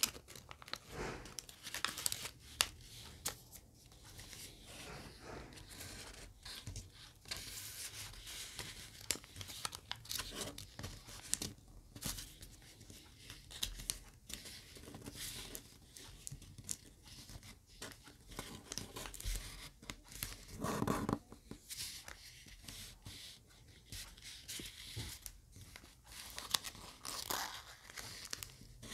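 Thin origami paper being folded and pressed into creases by hand: irregular crinkling and rustling with small sharp crackles. One louder rub of the paper comes about two-thirds of the way through.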